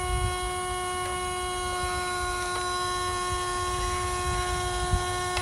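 Huina 1572 RC crawler crane's electric winch motor whining at one steady pitch as it reels in the cable and hoists a small block off the ground; the pitch drops as the motor stops right at the end.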